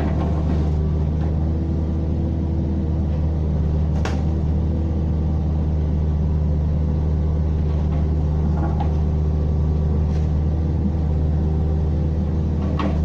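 Diesel engine of a compact construction machine running at a steady speed, with a sharp knock about four seconds in and another near the end.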